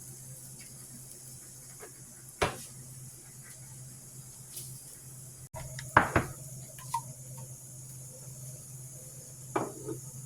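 Cookware and dishes being handled in a kitchen: a few sharp knocks and clatters, the loudest cluster about six seconds in, over a steady low hum.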